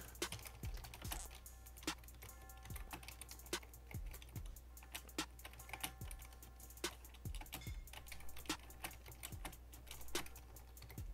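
Typing on a computer keyboard: a run of irregular key clicks, several a second, as a sentence is typed out.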